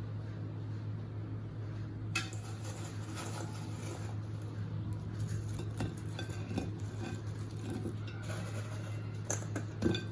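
Kitchen utensils clinking and scraping against plates and pans in scattered short knocks, the loudest near the end, over a steady low hum.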